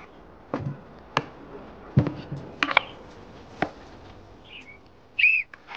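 Kitchen knives chopping broccoli on wooden cutting boards: about five sharp, irregular knocks spread over a few seconds. A short, high squeak comes near the end.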